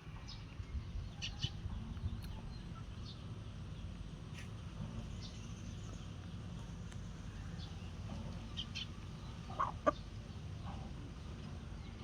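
Short, scattered bird chirps and calls over a steady low rumble, with one louder call near the end.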